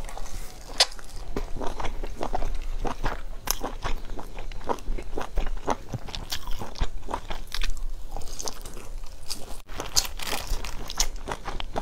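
Chewing and biting into a crisp-crusted pan-fried flatbread: a steady run of short crunches, several a second.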